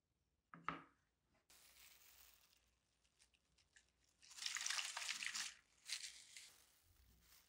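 A single light knock as the sanded wooden saw handle is set down on a plastic tray. Soft crinkling follows, loudest in a stretch about halfway through, as hands in disposable plastic gloves handle a plastic bottle.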